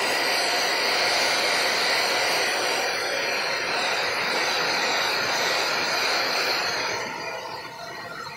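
Hair dryer blowing steadily with a loud rushing noise, turning quieter about seven seconds in.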